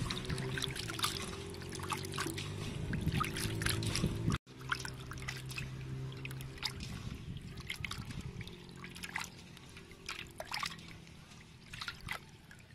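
Water sloshing and splashing in a metal basin as hands rub and squeeze pieces of raw pork liver to wash them, with many small splashes and drips. A low steady hum runs underneath, and the sound cuts out briefly a little over four seconds in.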